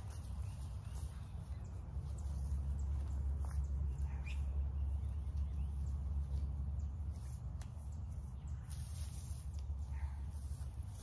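Outdoor yard ambience: a steady low rumble throughout, with a few faint bird chirps and scattered light knocks.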